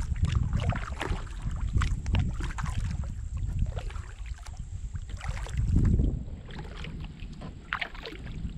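Kayak paddle strokes: water splashing and dripping off the blades in a loose rhythm of about one stroke a second, over a steady low rumble of wind on the microphone.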